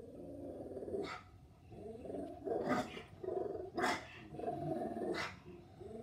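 Havanese dog growling steadily, broken by about four short, sharp barks.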